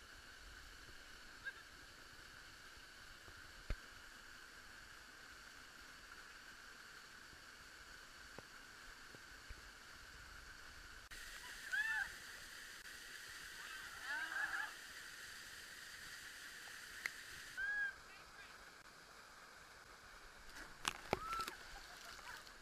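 Rushing water of a stream and waterfall, muffled through a waterproof camera housing, with a few short high calls that rise and fall, heard about halfway through and again near the end.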